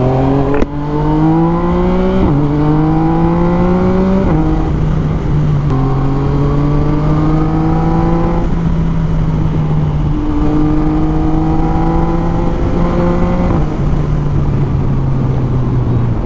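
Yamaha MT-09's three-cylinder engine through an Akrapovic full carbon exhaust, pulling under throttle while riding. Its note climbs steadily and drops sharply at each gear change: three quick changes in the first four seconds, then two longer, slower pulls.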